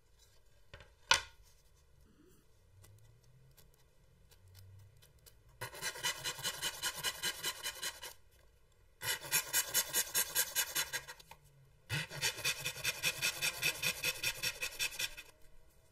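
Fine-toothed hand saw cutting into the end of a solid wood board in quick, even strokes, about five a second, in three bouts of a few seconds each. A single sharp click about a second in.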